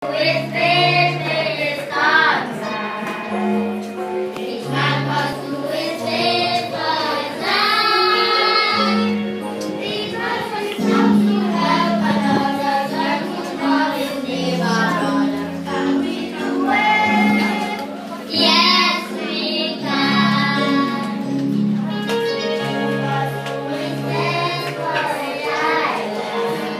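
A group of children singing a song together in unison, over steady accompanying chords.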